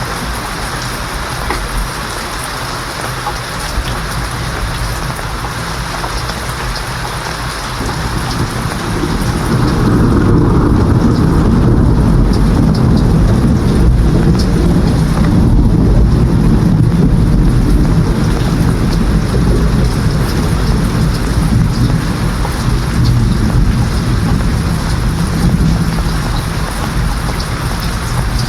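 Steady rain with a long rolling thunder rumble. The rumble builds about eight seconds in and lasts most of the rest.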